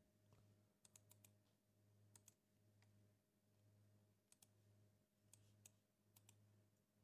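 Near silence with faint computer mouse clicks, mostly in quick pairs, scattered through, over a faint steady low hum.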